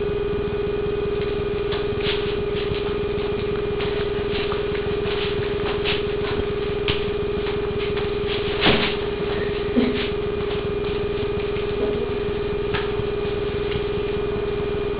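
Steady electrical hum, one unchanging tone with fainter overtones, with scattered faint clicks and taps and one louder tap about nine seconds in.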